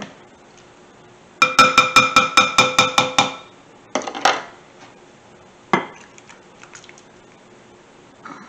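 A quick run of about ten light strikes on kitchenware, each leaving a clear ringing tone, then a few single knocks of dishes being set down on the counter.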